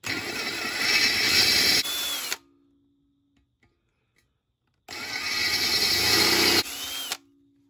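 Power drill boring out pilot holes in an aluminium T5 bell housing with a 21/64-inch bit, in two bursts of about two and a half seconds each with a pause between. Each burst eases just before it stops and ends in a short hum.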